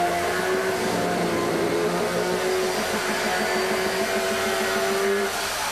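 Gas chainsaw engine running loud and steady at high revs.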